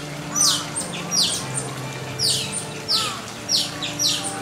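Asian small-clawed otters chirping: a run of sharp, high-pitched calls, each falling in pitch, many coming in quick pairs.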